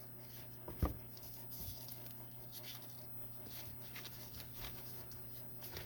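Faint handling of rubber squishies and their molds: small rustles and ticks, with one soft knock about a second in, over a low steady hum.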